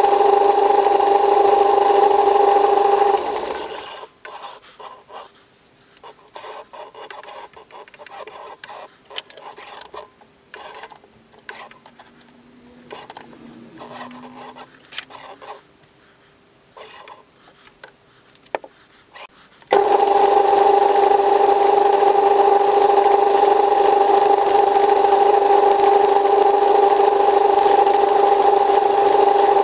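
Metal lathe running with a steady hum, switched off about three seconds in and running down. Then a quieter stretch of small clicks and knocks from the chuck being handled, until the running hum comes back suddenly about twenty seconds in.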